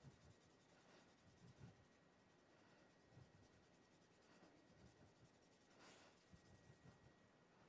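Faint scratching of chalk strokes on a dark drawing board, short irregular scrapes with a few sharper strokes, barely above near silence.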